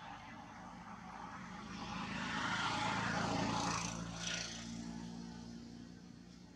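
An engine passes by: a steady drone swells to its loudest about three seconds in, then fades away.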